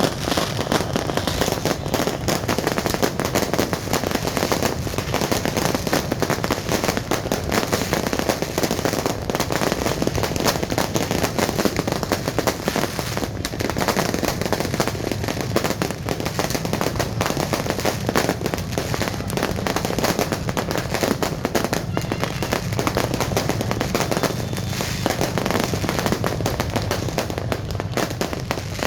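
Fireworks going off in a continuous, dense barrage of rapid bangs and crackles, with no break.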